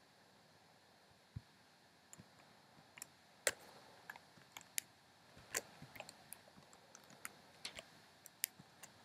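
Computer keyboard keys being typed on: irregular, unevenly spaced clicks, some louder than others, starting about a second and a half in.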